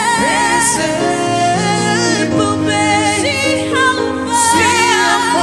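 Gospel worship music: a voice singing bending, ornamented lines over sustained instrumental chords and a bass line.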